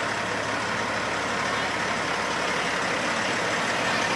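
Semi-truck's diesel engine running steadily as it drives past at close range, pulling a loaded flatbed trailer.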